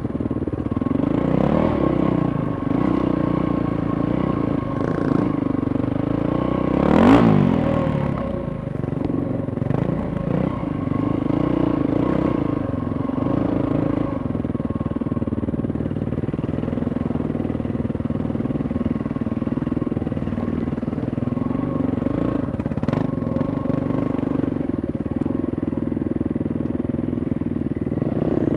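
Dirt bike engines running steadily at trail speed, heard from the camera rider's own motorcycle. A short loud burst with a quick swing in pitch comes about seven seconds in, and a sharp click near the end.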